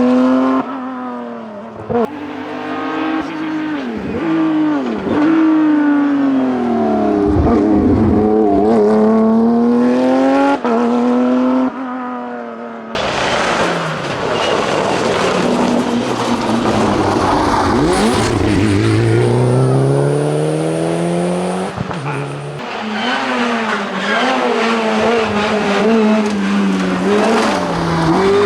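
Rally cars on an asphalt stage at full attack, engines revving up and down through the gears: first a Porsche 997 GT3 Cup's flat-six, then, after a sudden cut about 13 seconds in, a Mitsubishi Lancer Evolution IV's turbocharged four-cylinder with a rougher, denser sound, then after another cut near 22 seconds an Opel Adam R2's four-cylinder revving hard.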